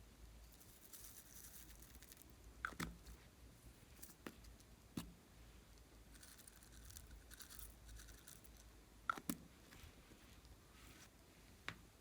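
Glossy slime being handled by hand: about seven faint, sharp clicks and pops, two close pairs among them, with a soft high crackle in between.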